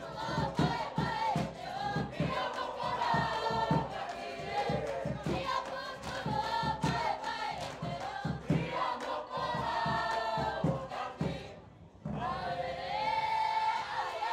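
A group of voices singing a Cook Islands song together over a steady, quick drum beat. The music breaks off briefly near the end, then resumes.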